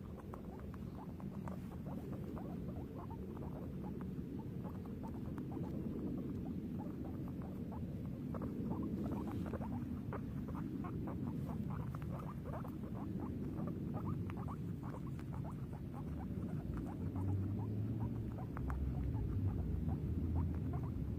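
Guinea pig making a long run of short, quick squeaky calls, several a second, over a steady low background rumble, with a few low bumps near the end.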